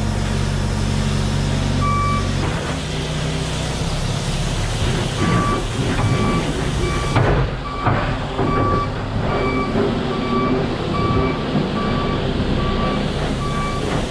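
Telescopic handler's diesel engine running under load, its reversing alarm beeping once early and then in an even series of short beeps from about five seconds in, a sign that the machine is backing up.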